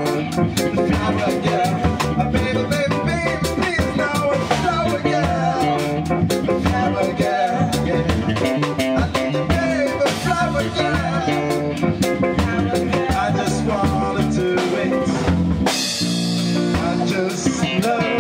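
Live band playing: drum kit, electric bass and keyboard, with a man singing into a microphone. A cymbal crash comes in near the end.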